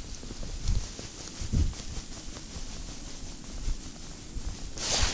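Irregular low thumps and soft rustling close to a body-worn microphone, from the angler shifting and his clothing moving, with a brief rushing hiss near the end.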